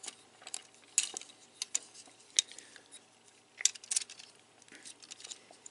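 Hard plastic parts of a Transformers Siege Springer action figure clicking and knocking against each other as the figure is handled and transformed: a scattering of sharp, separate clicks at an irregular pace.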